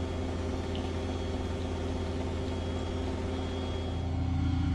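An engine idling steadily: a low, even hum that gets a little louder near the end.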